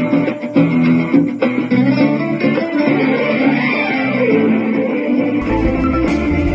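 Background music led by plucked guitar, with a deeper bass part and a few percussive hits coming in about five and a half seconds in.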